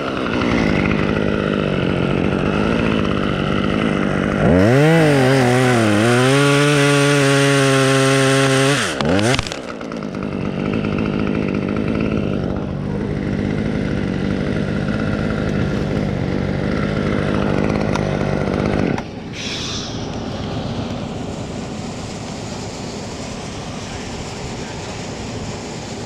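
Small two-stroke chainsaw running steadily. For about four seconds, starting about five seconds in, its pitch dips and wavers as it works in a cut. About two-thirds of the way through the engine note stops, leaving a quieter rushing noise.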